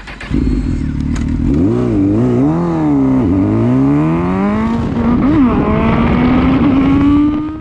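Honda CB1000R inline-four motorcycle engine pulling away: the revs rise and fall a few times, then climb steadily as the bike accelerates.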